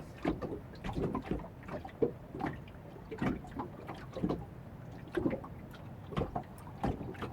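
Water lapping and slapping against the hull of a small boat: irregular short splashes, about one every second, over a low steady rumble.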